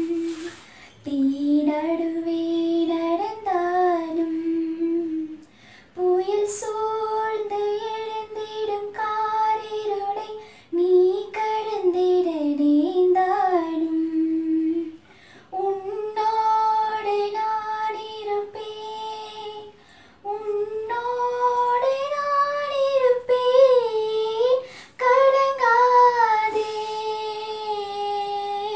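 A young woman singing a slow song in Tamil, unaccompanied, in long held phrases with short pauses between them.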